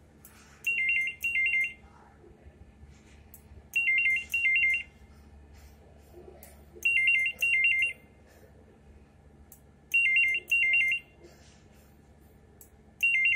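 Electronic desk telephone ringer warbling rapidly between two pitches in a double-ring pattern, four rings about three seconds apart and a fifth starting near the end. It is an incoming trunk-line call being rung to the first extension by the EPABX before round robin hands it to the next phone.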